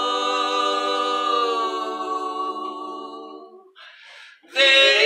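Four voices, men and a woman, singing a cappella in close harmony. They hold one long chord that slowly fades out. After a brief pause, the group starts singing again loudly just before the end.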